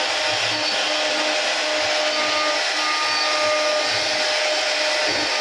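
A 3-axis CNC router's spindle running steadily while its bit cuts wood, a constant motor whine under a rushing cutting noise, with faint tones that come and go.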